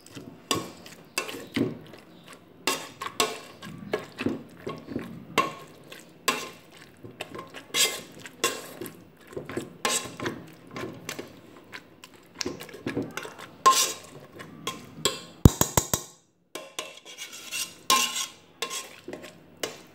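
A metal potato masher mashes soft cooked eggplant and tomato in a metal pressure-cooker pot. It knocks and clinks against the pot in irregular strokes, about one or two a second.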